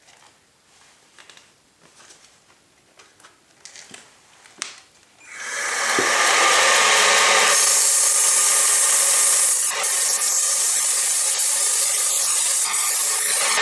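A few light handling clicks, then about five seconds in a loud, steady sanding hiss starts: abrasive paper held against an aluminium alloy wheel rim spinning on a homemade motor-driven polishing jig.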